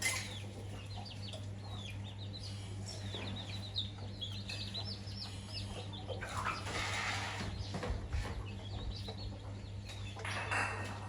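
Chicks peeping repeatedly in short high calls that slide down in pitch, with the occasional cluck of the hen, as the chickens feed. A few brief rustling noises come in the middle and near the end, over a steady low hum.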